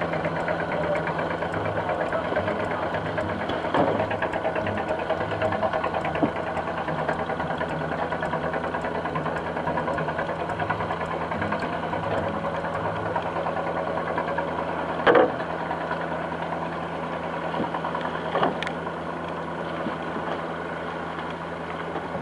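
Fishing boat's diesel engine running steadily under way, with a few short sharp knocks over it, two of them a little past the middle.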